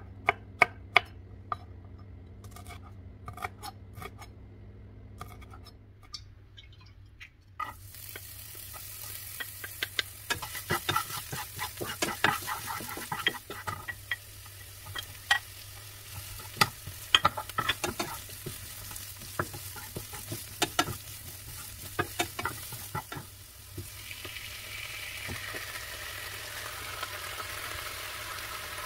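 A kitchen knife chopping bird's-eye chilies on a wooden cutting board, a run of sharp taps. About eight seconds in, sliced onion and garlic start sizzling in a hot non-stick frying pan, with a wooden spatula scraping and tapping the pan as it stirs.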